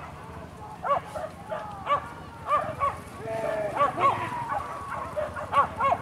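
Several hunting dogs yelping and barking over one another in short high calls, with a couple of longer drawn-out howling calls in the middle.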